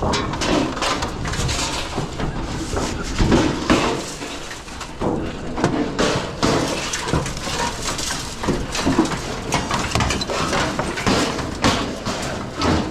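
Heavy metal barbecue being lifted and shifted onto a loaded scrap trailer: irregular metal clanks, knocks and scrapes, with men grunting and straining under the weight.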